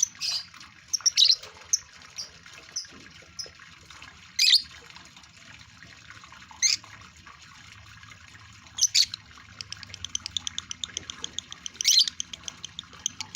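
Male lovebird in breeding condition calling: loud, shrill single chirps every second or two, then from about nine seconds in a rapid chatter of short chirps, around eight a second.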